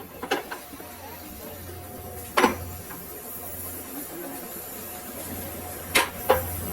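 Four sharp metallic knocks over a steady low machine hum: about a third of a second in, a louder one about two and a half seconds in, and two in quick succession near the end.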